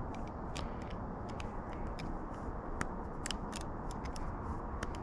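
A .22 LR round being thumbed into a Glock 44 magazine with a +5 extension: scattered small metallic clicks and scrapes as the cartridge is pressed down against the stiff, not yet broken-in magazine spring.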